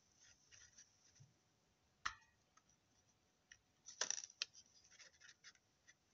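Hand-held craft flower punch working on stamped cardstock: a sharp knock about two seconds in, then the loudest snap and a quick run of clicks around four seconds as the punch is pressed through the paper, with light paper rustling between.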